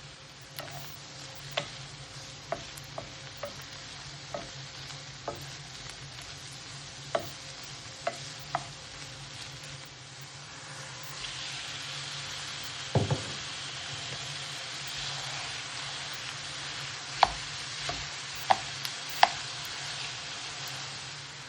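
Sharp clinks of a utensil against cookware. About halfway through, a steady sizzle of food frying in a pan sets in, with a dull thud soon after and further clinks of stirring. A low hum runs underneath.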